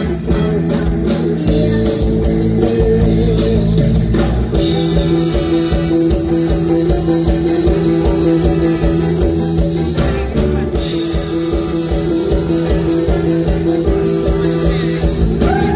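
Live band playing an upbeat Isan (northeastern Thai) song with electric guitar, keyboard and drums keeping a steady beat, heard from inside the crowd.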